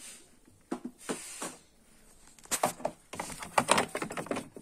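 Clicks and knocks of parts being handled and fitted on a De'Longhi Eletta Cappuccino Top espresso machine: a few light taps, then a quick clatter of knocks in the second half.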